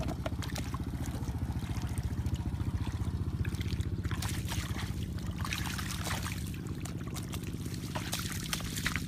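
Splashing and sloshing of shallow muddy water as someone wades barefoot and gropes by hand for fish, heaviest from about four seconds in. Under it runs a steady low engine drone.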